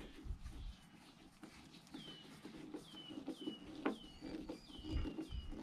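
A hand screwdriver driving an old screw into the wooden strip along a boat hull: faint clicks and creaks, with repeated high squeaky chirps, each dipping a little in pitch, and one sharper click near the middle.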